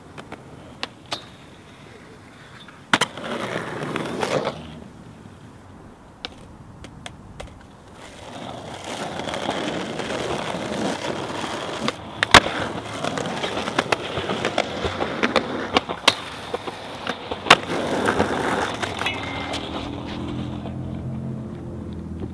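Skateboard wheels rolling on concrete, with sharp cracks of tail pops and the board slapping down on landings; the loudest crack is about twelve seconds in.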